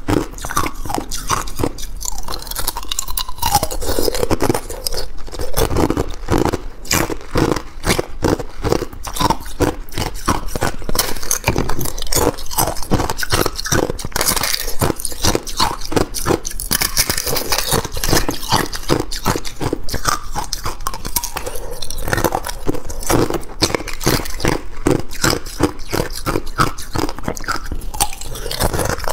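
Thin ice being bitten and chewed: a rapid run of sharp cracks and crunches as the thin sheets snap between the teeth.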